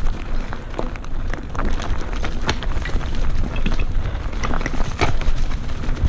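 Mountain bike rolling along a forest trail: the tyres crunch over small stones and dry leaves in a dense run of irregular clicks and crackles, over a steady low rumble.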